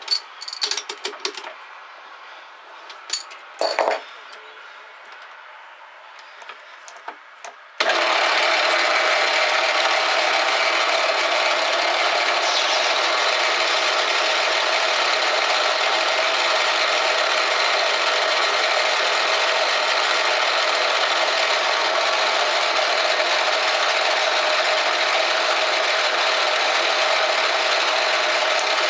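A few sharp metal clinks and knocks as the brass blank is reset in the lathe chuck, then about eight seconds in a metal lathe starts abruptly and runs steadily with the blank spinning, a loud even mechanical noise.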